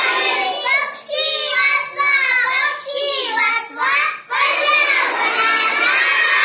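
A group of children singing, their voices coming in phrases with short breaths between them.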